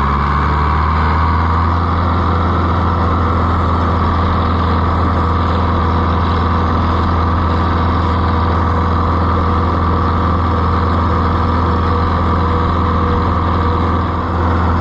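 Oliver 1365 tractor engine running steadily under way. The engine note rises just at the start and dips briefly near the end.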